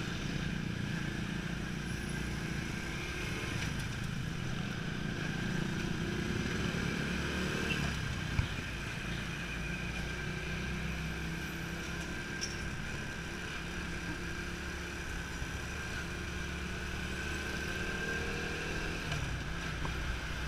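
Motorcycle engine running steadily while riding slowly in traffic, with road and wind noise. There is a brief knock about eight seconds in, and the engine note rises near the end as the rider speeds up.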